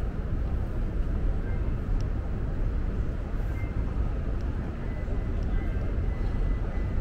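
Steady low rumble of a large station concourse's ambience, with a faint thin high tone running under it and a few faint ticks.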